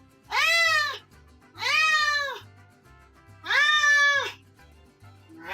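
Domestic cat meowing three times in a row, each meow rising then falling in pitch and lasting under a second, with a fourth starting at the end, answering its owner calling its name.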